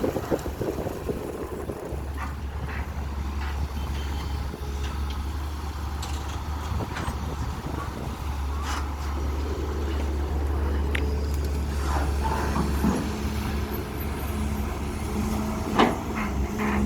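A CAT320 long-reach excavator's diesel engine runs with a steady low drone. About twelve seconds in, its note shifts to a higher steady tone. Scattered light clanks sound throughout, and one sharp knock comes near the end.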